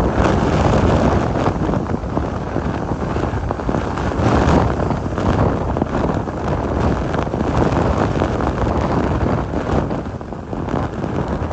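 Extreme hurricane wind blowing hard across the microphone in loud gusts, strongest about four and a half seconds in and easing a little near the end.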